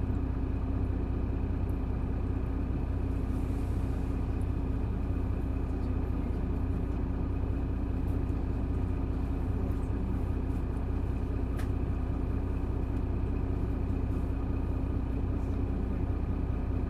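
Isuzu Erga city bus's six-cylinder turbo-diesel engine idling steadily, heard from inside the bus; the pitch holds level throughout.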